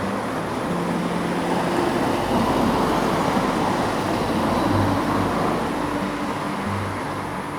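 Road traffic: a steady rush of car tyres and engines, swelling as a vehicle passes in the middle.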